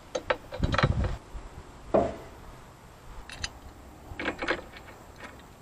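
Light metal clinks and taps of motorcycle bolts and parts being handled and pushed into place by hand, coming in a few short clusters, with one louder knock about two seconds in.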